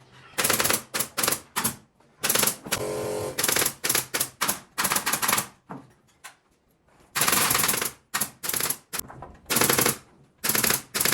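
Pneumatic nail gun firing in rapid bursts, a quick clatter of shots, around a dozen bursts with short pauses between them.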